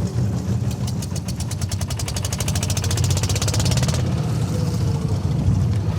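Fishing boat's engine running steadily at idle, with a fast, even clatter about ten times a second that stops about four seconds in.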